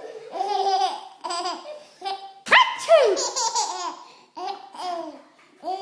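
A baby laughing heartily in repeated bursts, loudest about two and a half to three seconds in.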